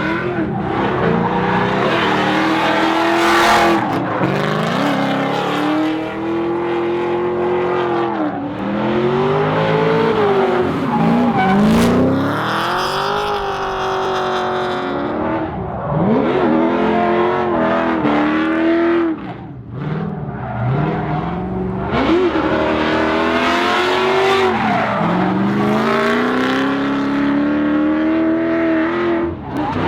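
Drift cars on track, engines revving hard and repeatedly rising and dropping in pitch as the drivers work the throttle through the slides, with tires squealing; a longer stretch of tire squeal about halfway through.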